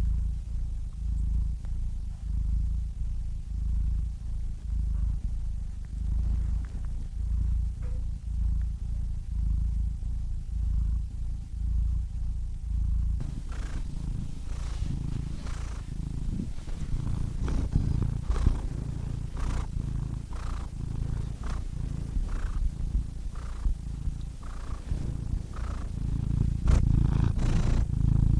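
Domestic cat purring, a low continuous purr that swells and fades with each breath. About halfway through it turns rougher, with more hiss and scattered small clicks.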